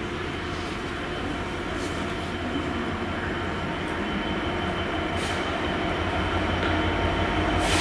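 Diesel locomotive approaching with a heavy train, its engine drone steady and getting slowly louder, with a few faint clicks.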